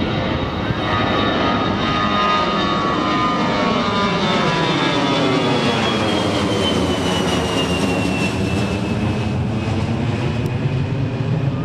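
Twin-engine jet airliner climbing out after takeoff and passing overhead: loud, steady jet engine noise with a high whine that falls in pitch as it goes over.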